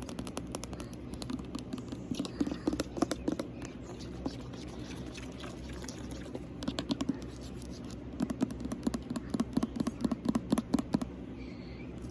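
Liquid sounds from a bottle of argan hair oil being handled: quick clicking sounds in irregular clusters as the oil moves inside, over the steady hum of a room fan.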